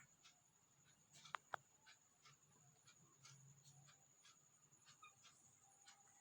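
Faint, irregular small clicks and crunches, about two or three a second with two sharper clicks about a second and a half in, typical of a pet parrot nibbling food with its beak; a faint steady high whine lies underneath.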